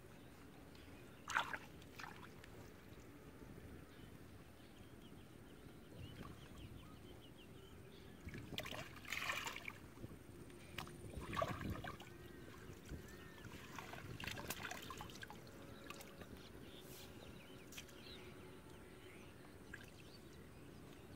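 Water splashing and sloshing as hands work in shallow, muddy water. There is one sharp splash about a second in and a run of louder splashes around the middle.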